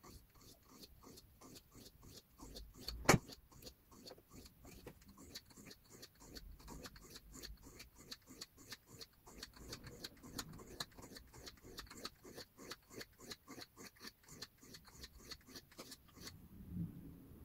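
Steel knife blade scraping back and forth across a whetstone in short, regular strokes, about four a second, with one sharper click about three seconds in. The blade's bevel is being reground to restore an edge that a machine had ruined.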